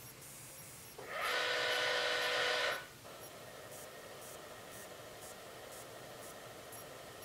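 Meade LX200GPS telescope's drive motors whining as the mount slews during its automatic alignment. About a second in, a loud whine rises in and holds for nearly two seconds, then cuts off. A fainter steady motor whine carries on after it.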